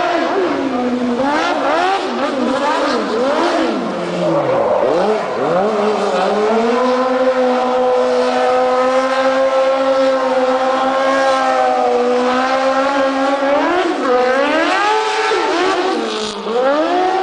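Small racing buggy's engine revving hard while drifting around cones. The pitch swings up and down, dips sharply about four seconds in, holds steady at high revs for several seconds, then falls and climbs again near the end.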